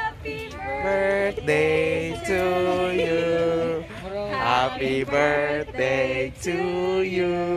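Several voices, men and women, singing together in long held notes.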